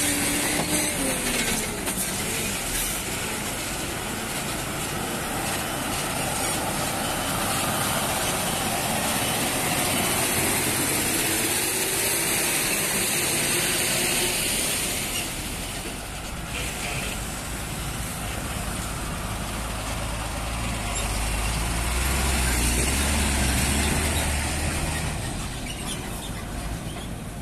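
Heavy diesel lorries driving past on a rough highway: steady engine and tyre noise, with engine notes rising and falling as trucks pass. A deep rumble swells near the end as a truck goes by close.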